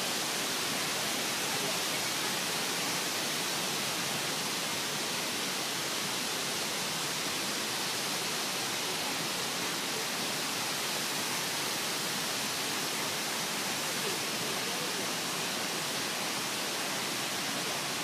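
Steady, even rush of flowing creek water, unbroken and without change in level.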